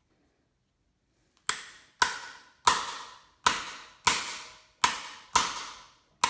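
Eight sharp metal-on-metal blows, about two a second and starting about a second and a half in, each ringing briefly: a hammer striking the extension of a cam bearing installer, driving a camshaft bearing into an Oldsmobile 350 V8 block.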